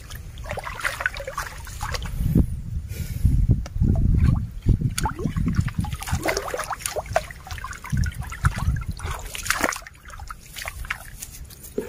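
Shallow, muddy stream water sloshing and splashing in irregular bursts as a hand net is moved through it.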